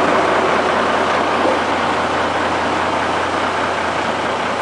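A heavy vehicle engine running steadily at idle.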